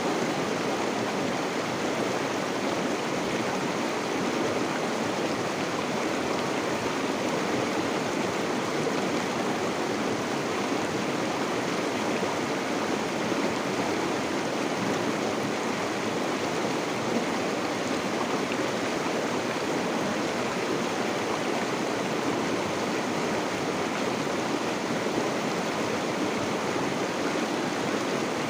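Steady rush of flowing river water, an even unbroken wash of water noise.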